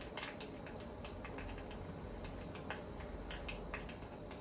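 Irregular light clicks of a food thermometer probe against the metal pot as milk heats on a camp stove, over the stove's steady low burner rumble.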